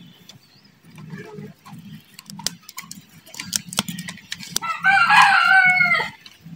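A rooster crowing once, loudly, for over a second about five seconds in. Before it come a few sharp clicks of scissors snipping small roots.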